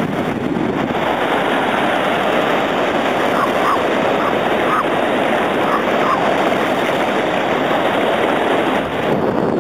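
Steady wind buffeting the microphone, mixed with the wash of small surf waves in the shallows. A few faint, short, high chirps come in the middle.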